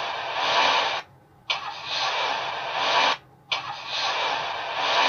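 Car-race engine sound effect looping: the same roughly two-second burst of engine noise starts abruptly, stops, and repeats after short gaps.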